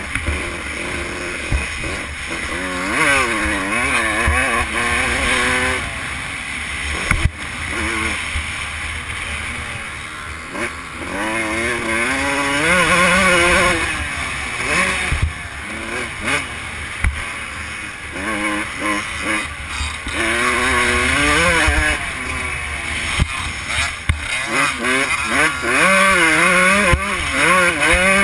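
Dirt bike engine revving up and down over and over as it is ridden hard around a rough dirt track, with rushing wind noise and a few sharp knocks from bumps.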